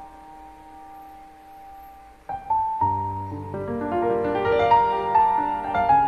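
Soft background piano music: a quiet held note, then about two seconds in a fuller, louder phrase of many notes comes in over low bass notes.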